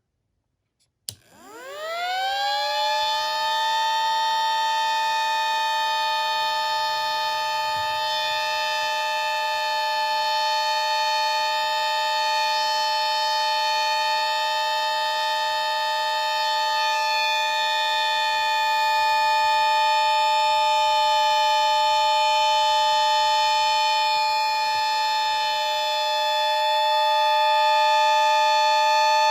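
Battery-powered miniature replica of a WW2 air raid siren with a 7/10 port rotor. A click about a second in, then it winds up over a couple of seconds to a steady dual-tone wail and holds it.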